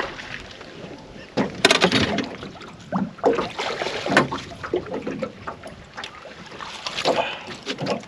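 Several irregular splashes as a hooked saratoga thrashes at the surface beside an aluminium boat and is scooped into a landing net. The loudest splash comes about one and a half seconds in.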